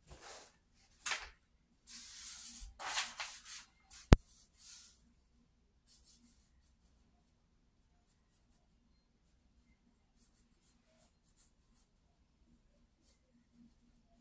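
Hands rustling and sliding over the paper of a large sketchpad for the first few seconds, with one sharp click about four seconds in; then faint, scattered scratches of a pencil sketching on the paper.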